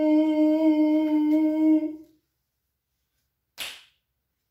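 A woman hums a steady, held 'nnn', the nasal sound of the letter N, for about two seconds at one pitch. A brief hiss follows about three and a half seconds in.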